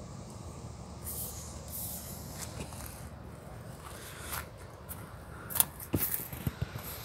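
Footsteps crunching on gravel track ballast over a low wind rumble on the microphone, with a few sharp clicks near the end.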